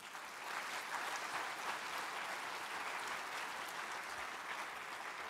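Audience applauding a prize winner: dense clapping that swells right after the name is read, holds steady, and slowly thins out toward the end.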